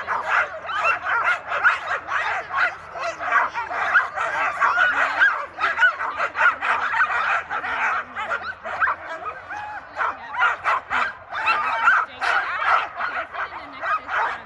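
A team of sled dogs in harness at a race starting line, many dogs barking and yipping at once with no pause. This is the excited din of dogs straining to be let go.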